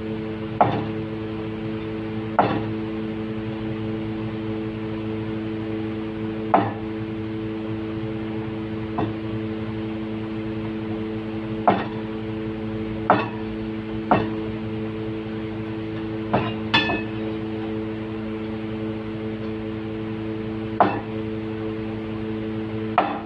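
A cleaver knocking down through tofu onto a plastic cutting board: about ten separate, unevenly spaced knocks, one about two-thirds of the way through with a short metallic ring. A steady low hum runs underneath.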